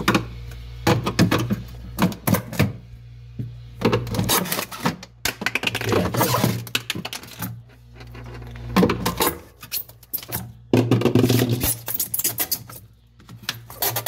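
Irregular clicks and scrapes of a screwdriver backing screws out of the plastic rear cover inside a frost-free fridge's freezer, with the plastic panel knocking as it is handled near the end.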